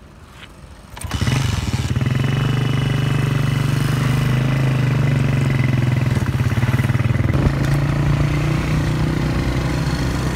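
Small motorcycle engine cutting in suddenly about a second in, then running steadily as the bike rides along.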